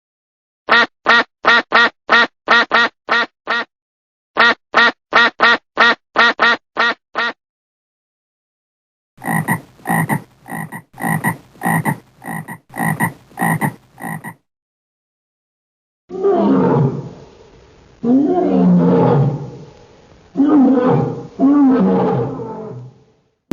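A run of animal calls: two quick series of about ten croaks each, a third series of rougher croaks, then three long, low roars that sink in pitch.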